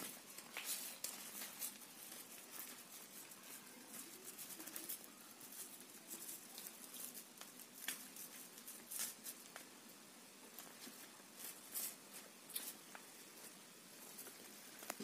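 Fresh sal leaves crackling and rustling in the hands as they are folded around small fish into a packet: faint, irregular crackles.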